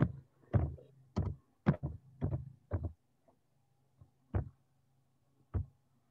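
A run of about ten sharp knocks and clicks, each with a dull low thud, bunched in the first three seconds and then two more spaced about a second apart, over a faint low hum.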